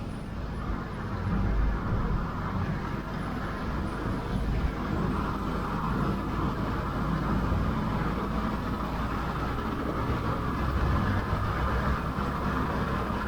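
Honda Fit (GD1) being driven, heard from outside the car: steady tyre and road noise with a low droning 'gō' hum, the abnormal noise found on the inspection test drive.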